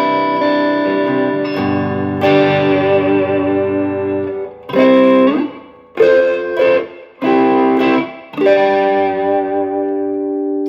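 Electric guitar played through the crayon side of a Hot Wax overdrive pedal, with the boost off: two ringing chords, then a string of short chord stabs, the last one held.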